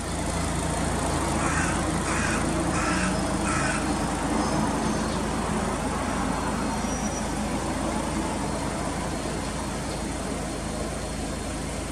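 Mitsubishi Lancer Evolution Wagon GT's MIVEC turbo four-cylinder engine idling steadily.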